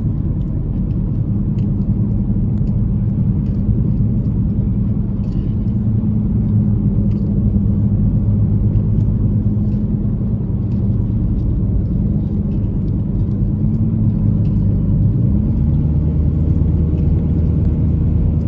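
Car cabin noise while driving: steady engine and road rumble, with the engine note shifting up and down in pitch several times in the second half.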